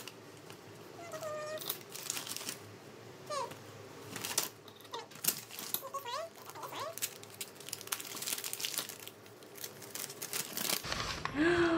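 Brown kraft paper bag and paper wrapping crinkling and rustling in irregular bursts as hands pull out acrylic charms and handle the wrapped bundle.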